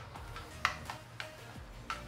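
Ratcheting torque wrench tightening oil pan bolts to 60 inch-pounds, giving sharp single clicks about every half second.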